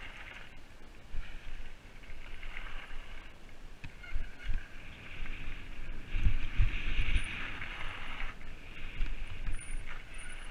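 Mountain bike rolling fast down a gravel path: tyres crunching and hissing on the gravel, the bike rattling and knocking over bumps, with a cluster of heavier thumps a little past halfway, and wind on the camera microphone.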